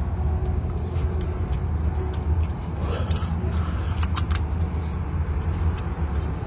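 Scattered light metallic clicks and clinks of hand tools and bolts being handled on the car, over a steady low rumble.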